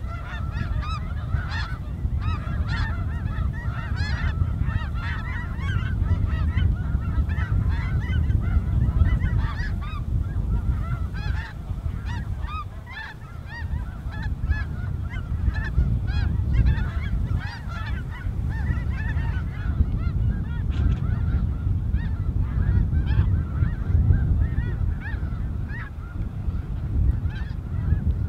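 A large flock of snow geese calling, many overlapping short honks at once. A loud, gusting low rumble of wind on the microphone runs underneath.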